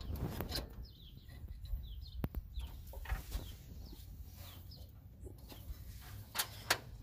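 Clicks and metal taps from a wrench turning a gear puller's forcing screw on a Chevy 454 crankshaft snout. Short chirping calls sound throughout.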